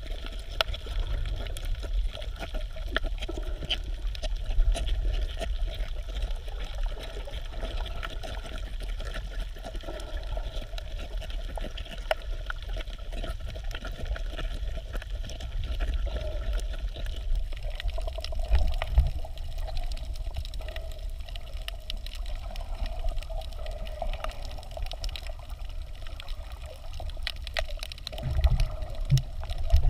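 Underwater sound picked up by a camera in a waterproof housing while snorkelling: muffled water sloshing and a low rumble, with a faint steady hum behind it. Louder low surges of water come near the end.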